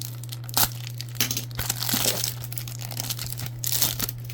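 Plastic wrapper of a trading-card pack crinkling and tearing as it is opened by hand, in irregular crackling bursts, loudest about half a second in, through the middle and near the end, over a steady low hum.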